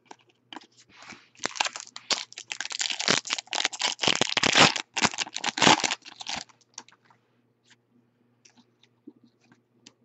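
Foil wrapper of a Bowman Chrome trading-card pack crackling as it is torn open and crumpled, about five seconds of dense crinkling, with light clicks of cards being handled before and after.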